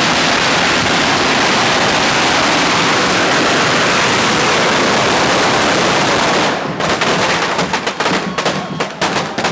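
Firecrackers going off on the street: a dense, continuous crackle of rapid bangs that breaks up about six and a half seconds in into separate sharp bangs in quick, irregular succession.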